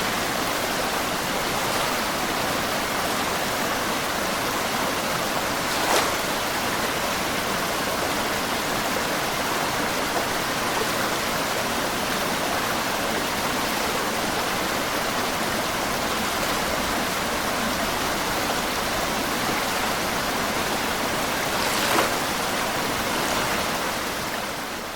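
Steady rush of small waves lapping against a stone embankment, a sound-effect recreation of lake ripples, with a brief louder splash about six seconds in and another near the end. It fades out at the very end.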